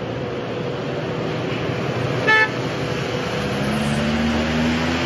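Road traffic in floodwater: vehicle engines and tyres running through water as a steady background, with one short car horn toot a little over two seconds in. An engine's note comes up near the end.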